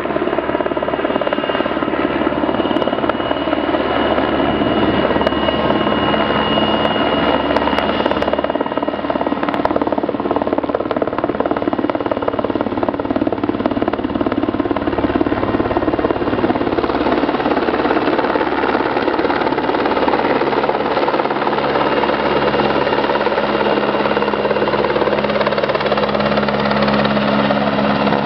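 Helicopter running steadily in flight, its rotor and engine noise holding at a constant level with steady droning tones.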